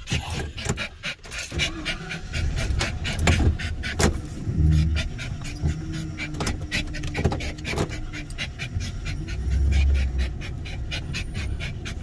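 A dog panting hard and fast in quick, even breaths, with some dull low thumps now and then.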